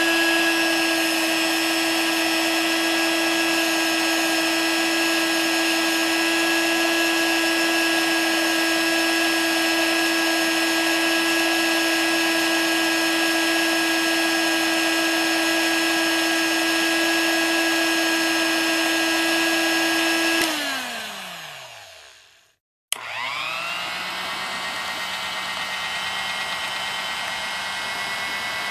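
Vintage electric mixer running at high speed with a steady whine. About twenty seconds in it is switched off and winds down, its pitch falling away. After a short silence and a click it starts again at low speed, mixing in the bowl, quieter and lower.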